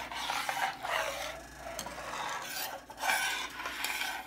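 Metal spoon stirring thick corn atole in a stainless steel pot, scraping the bottom and sides in uneven strokes. The atole is stirred without stopping so it does not stick to the pot and scorch.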